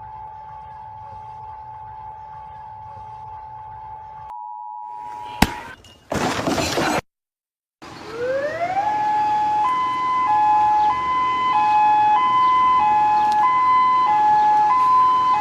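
Electronic emergency-alert alarm tones. A steady, quieter single-pitch tone steps up in pitch, then comes a sharp click and a second-long burst of static, a brief dropout, and a louder siren that winds up in pitch and then alternates between two pitches about every half second.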